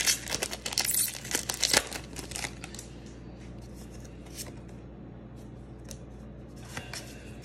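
Foil wrapper of a Pokémon trading card booster pack being torn open and crinkled, loudest in the first two seconds or so. It then dies down to a few light ticks.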